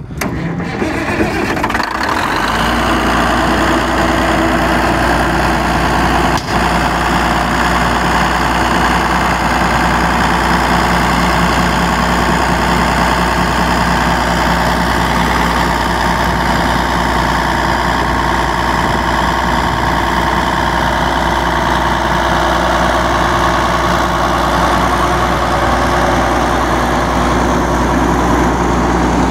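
Cummins diesel engine of a Holman compressor coming up to speed about two seconds in, then running steadily with a deep hum.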